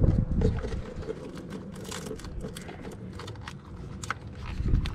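Scattered small plastic clicks and taps as hands fit a wiring connector onto a new ignition coil, over a low background rumble.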